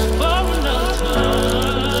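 Background music: sustained low notes under a melody that glides up and down.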